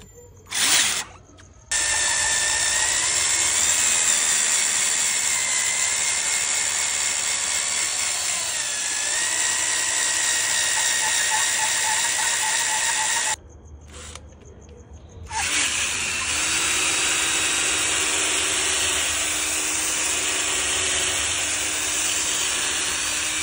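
Cordless drill spinning a foam polishing pad on car paint: a short blip, then it runs for about eleven seconds with its whine wavering and dipping briefly in pitch, stops for about two seconds, and runs again steadily.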